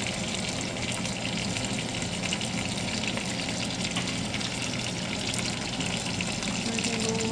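A dry-aged steak searing in a pan of hot oil and melted butter with garlic: a steady sizzle full of fine crackling spits.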